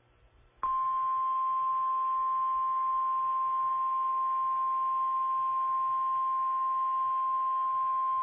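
NOAA Weather Radio warning alarm tone: a single steady 1050 Hz tone that starts abruptly about half a second in and holds unbroken. It is the alert that a warning is about to be broadcast, here a severe thunderstorm warning.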